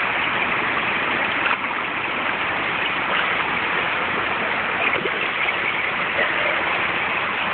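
Steady rush of churning swimming-pool water, with splashing as a small child swims through it.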